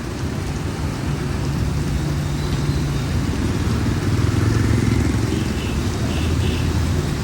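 Motor traffic engines running on a wet street, a steady low hum that swells toward the middle, over an even hiss of rain.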